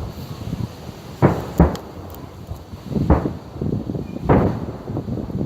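Fireworks exploding overhead: four sharp bangs, two close together about a second in, one about three seconds in and one a little past four seconds, each trailing off.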